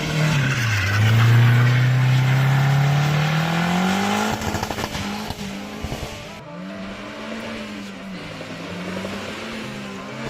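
Volvo 740's B230 four-cylinder engine, hard-driven while drifting: the revs climb steadily for about four seconds, then rise and fall repeatedly as the car is held in a slide, with some tyre noise.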